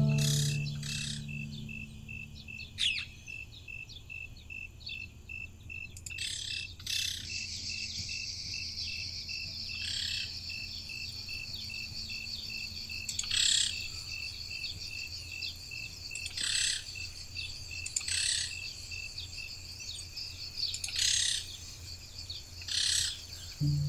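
Forest ambience: a high-pitched insect call pulsing steadily, a thin insect buzz in the middle stretch, and birds calling every few seconds.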